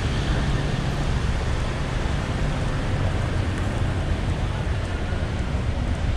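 Steady traffic noise of a busy city road: a continuous low rumble of vehicle engines with tyre noise.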